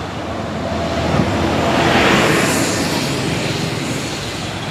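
A road vehicle driving past. Its noise swells to a peak about two seconds in and then fades.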